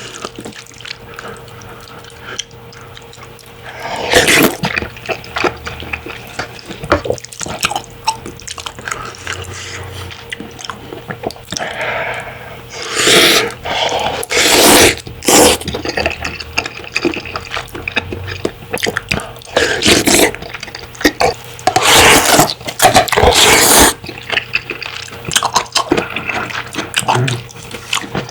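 Close-miked slurping of ramen noodles and broth, in several long slurps, with wet chewing and mouth sounds between them.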